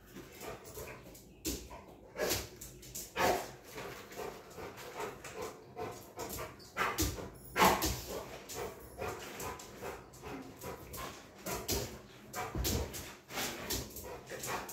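A large black dog whining and yipping in short, irregular bursts, begging for food held up out of its reach. The loudest cry comes about halfway through.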